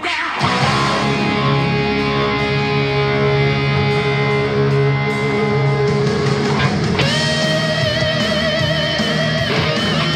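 Les Paul-style electric guitar playing a rock part over a backing track. About seven seconds in, a long held note with wide vibrato comes in.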